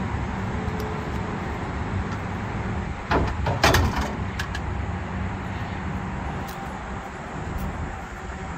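A few sharp metal clanks about three to four seconds in as a winch bar and tools are put into a metal toolbox under a flatbed trailer, with a few lighter clicks after, over a steady low engine rumble.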